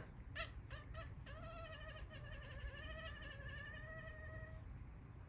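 House cat yelling in protest at a sneeze: four short chirping calls, then one long wavering yowl of about three seconds that stops well before the end.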